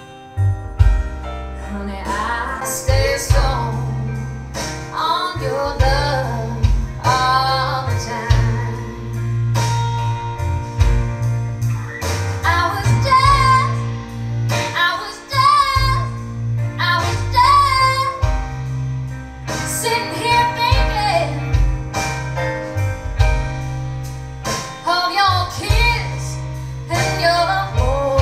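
A song with a female singer and a strong bass line, played back through hi-fi loudspeakers with an active subwoofer.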